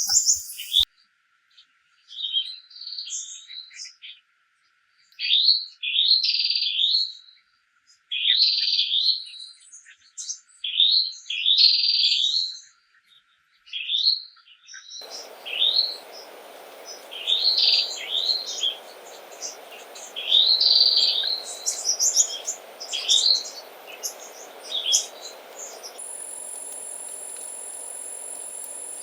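Songbird singing short, repeated chirping phrases with gaps between them. About halfway through, a steady forest hiss cuts in, and near the end a steady high insect trill takes over.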